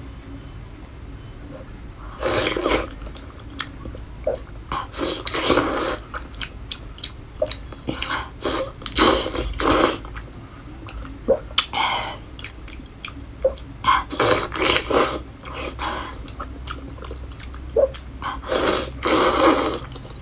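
Close-miked chewing and mouth sounds of someone eating soft, glazed braised pork belly by hand: irregular smacks and clicks, with louder noisy bursts every few seconds.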